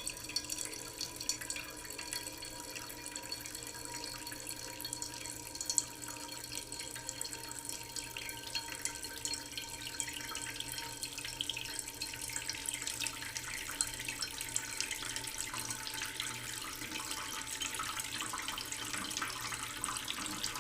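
Water running from a tap into a cooking pot, a steady splashing pour that grows slightly louder toward the end as the pot fills.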